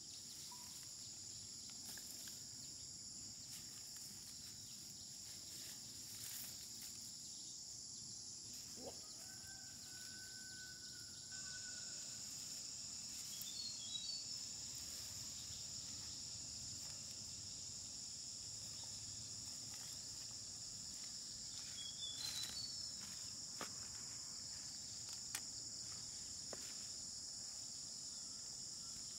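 Steady high-pitched insect chorus, growing louder partway through, with a few short bird chirps and scattered faint clicks.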